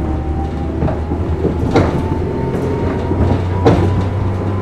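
JNR 115 series electric multiple unit running, heard inside the motor car: the MT54 traction motors and gears whine over a steady rumble, the whine rising slowly as the train gathers speed. Several sharp wheel knocks over rail joints, the loudest about two seconds in and again near the end.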